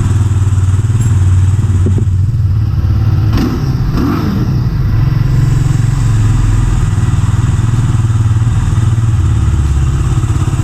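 Benelli TNT25's freshly rebuilt 250cc single-cylinder engine running steadily after being started, with a brief knock or two a few seconds in.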